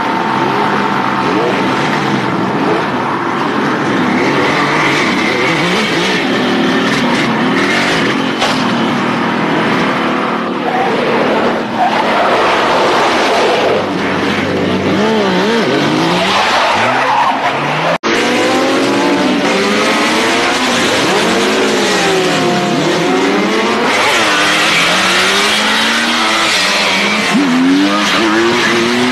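Motorcycle engines revving, their pitch repeatedly rising and falling, mixed with tyre squeal. A sudden break comes about eighteen seconds in, after which the revs swoop up and down more widely.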